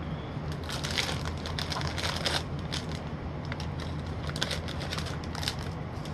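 Snack bag of chocolate-glazed popcorn crinkling and rustling in irregular bursts as it is opened and handled.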